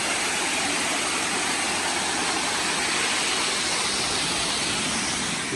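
Waterfall pouring steadily: a continuous, even rush of falling water.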